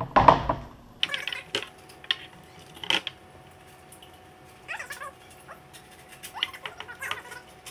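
Utility knife cutting skateboard grip tape along the edge of the deck: short squeaky, rasping strokes every second or so. A couple of knocks come right at the start.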